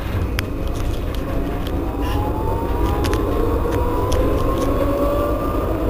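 Alstom Citadis 302 tram's traction drive whining as it pulls away: two tones rising slowly and steadily in pitch as the tram gathers speed, over a low rumble, with a few sharp clicks.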